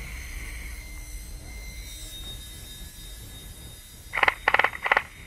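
Three short, loud buzzing bursts of full-auto fire, most likely from an airsoft electric rifle (AEG), about four seconds in, over a low rumble of camera movement in the grass.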